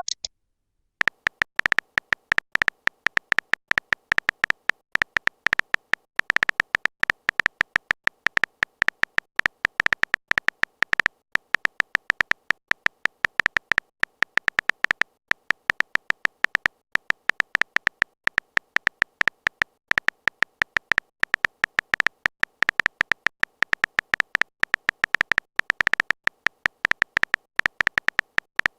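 Typing sound effect: rapid, irregular clicking that keeps up throughout, over a steady high ring.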